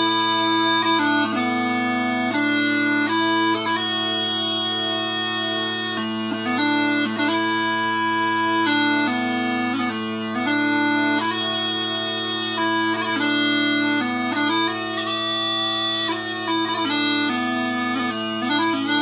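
A four-drone set of Quietpiper small pipes playing a tune: the drones hold a steady low chord while the chanter plays a melody above it, moving from note to note.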